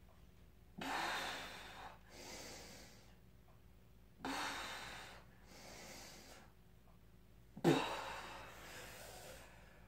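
A woman breathing hard through barbell overhead press reps: three sharp, forceful breaths about three seconds apart, each followed by a softer one. The last breath, near the end, is the loudest and starts with a brief strained voice.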